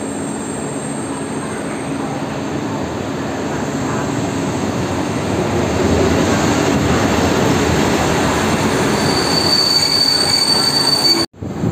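Electric locomotive and passenger coaches running past at close range, the rumble and rattle of wheels on the track growing louder as the train draws level. A high steady wheel squeal comes in about nine seconds in, and the sound cuts off abruptly near the end.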